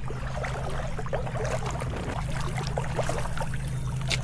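Shallow stream water running and trickling in a busy, irregular patter over a steady low rumble, with one sharp click about four seconds in.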